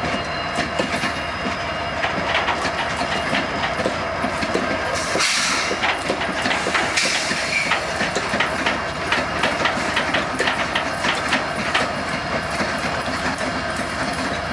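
A lash-up of Union Pacific diesel-electric freight locomotives passing close by: engines running, with a steady rumble of steel wheels on rail and rapid clicks and clacks over the track. A brief hiss comes about five seconds in.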